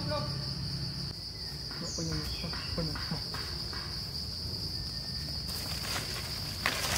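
Steady, high-pitched drone of insects such as crickets or cicadas, with a few faint short sounds and some rustling near the end.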